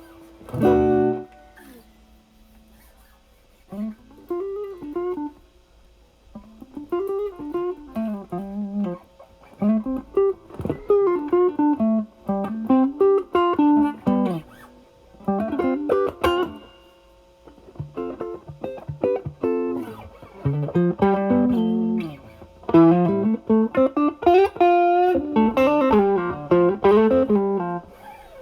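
Stratocaster electric guitar with single-coil pickups, played through an Ibanez Tube Screamer Mini overdrive pedal into the drive channel of a Marshall Valvestate amp. There is a short chord stab about a second in, then a pause, then single-note lead phrases in a cleaned-up, lightly overdriven tone.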